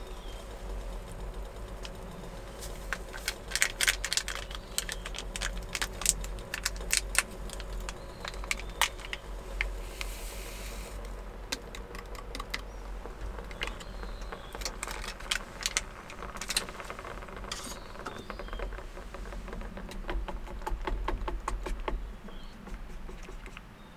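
Small clinks, taps and rattles of cooking at a gas cartridge stove: a packet being handled and emptied into a small aluminium pot of boiling water, with a brief rustling hiss about ten seconds in, then chopsticks stirring and tapping in the pot near the end.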